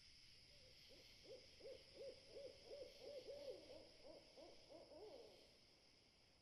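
Faint owl hooting: a quick run of short hoots, about three a second, that fades out near the end, over a steady high hiss.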